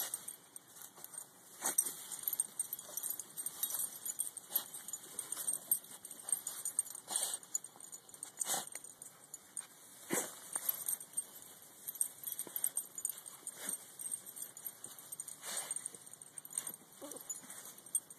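Dachshunds digging into a mole hole, paws scrabbling through soil and dry pine straw in irregular scratches and rustles, with heads pushed into the hole.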